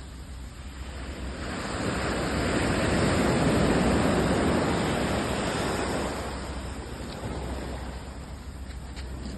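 Sea waves breaking on the shore: one wave's rush swells over a couple of seconds, peaks about four seconds in and washes out, over a steady low rumble.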